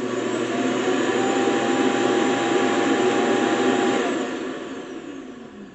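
ECOVACS DEEBOT X9 PRO Omni station auto-emptying the robot's dustbin: a loud rush of suction airflow with a steady whine. It holds steady, then dies away from about four seconds in.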